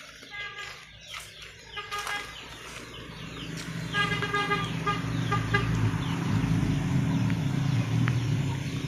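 Chickens clucking in short repeated calls, several times. A low rumble builds up from about three seconds in and stays loud.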